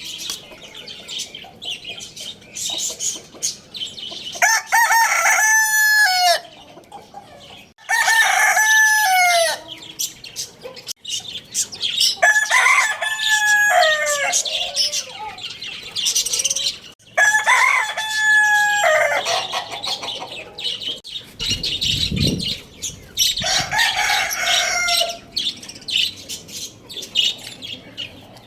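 Rooster crowing five times, several seconds apart, each crow ending on a falling note. Clucking and high chirping from other birds fill the gaps.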